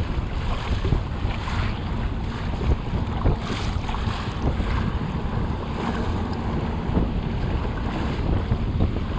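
Wind buffeting the microphone over water splashing and slapping against a kayak hull running through choppy swells.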